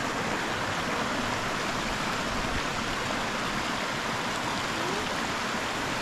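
Shallow mountain river flowing steadily over stones.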